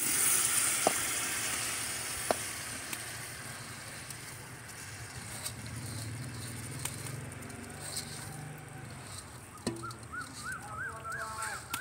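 Wet, freshly washed rice going into hot ghee and masala in a pot, setting off a loud sizzle that slowly dies down, with a few sharp clicks in the first seconds.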